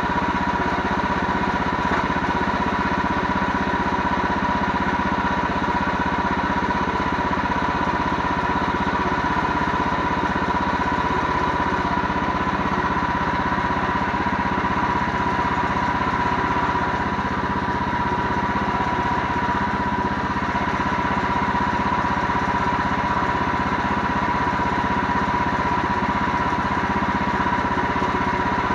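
An engine running steadily at constant speed, with a steady high whine over it.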